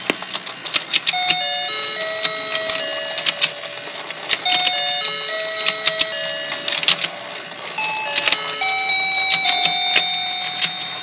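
Battery-powered rotating toy fishing game playing its electronic beeping tune, a simple melody of single notes, over frequent plastic clicks of the turning pond and its fish.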